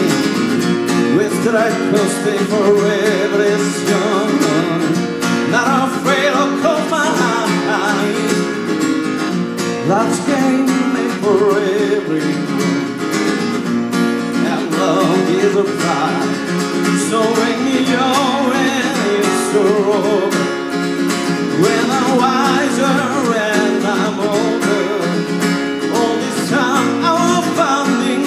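Acoustic guitar strummed steadily under a man singing live into a microphone: an acoustic cover song.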